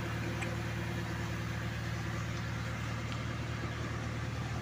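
Excavator's diesel engine idling steadily, a low even hum.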